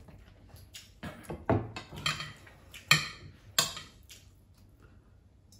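Dishes and cutlery clinking and knocking at a meal: a string of sharp clinks from about one second in to about four seconds in, the loudest near three seconds.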